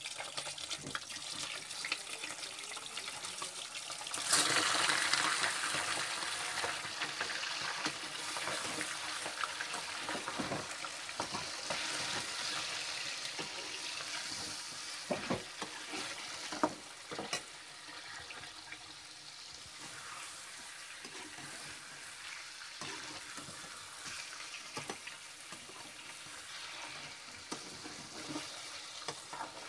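Fish steaks sizzling as they deep-fry in hot oil in a metal kadai. The sizzle jumps to its loudest about four seconds in, then slowly dies down, with a few sharp clicks and knocks in the middle.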